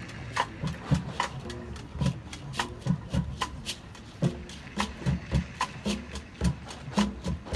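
Marching band percussion playing a sparse rhythmic passage: sharp stick clicks and low drum hits, with a few faint held notes in the middle.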